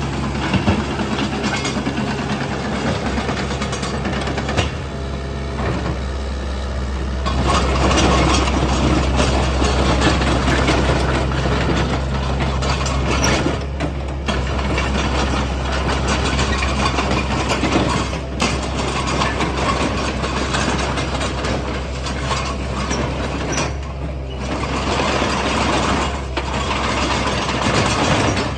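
Hitachi ZX70 tracked excavator's diesel engine running with a steady low hum, growing louder and busier from about seven seconds in as the machine is worked, with mechanical clatter mixed in.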